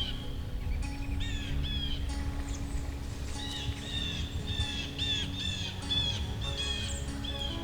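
A songbird calling in a fast series of short, repeated downslurred chirps, about two or three a second, over soft background music with held tones.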